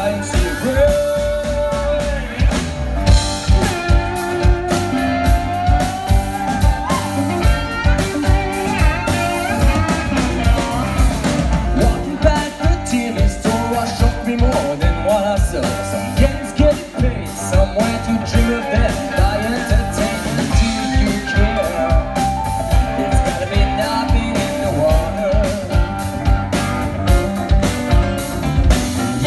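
A rock-and-roll song with singing over guitar and a steady drum beat.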